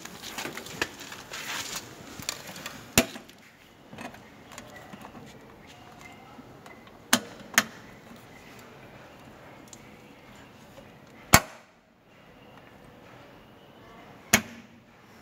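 Handling rustle and a few sharp, separate clicks and knocks of plastic and metal as a heavy-duty multi-pin power connector is handled and pushed into the socket of an electrical control box, with a loud click near the end as the plug goes in.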